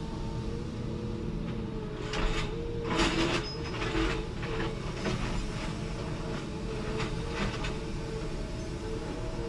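Forestry tractor engine running steadily, with a slightly wavering drone. Several short bursts of cracking and clattering come over it about two, three, four and seven seconds in.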